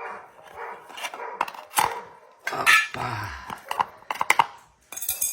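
Dogs barking and whining in short calls, with scattered clicks and knocks between them.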